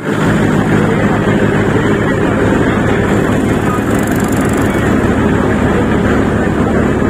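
Tractor-powered multi-crop thresher running: a steady engine drone under an even mechanical whirr.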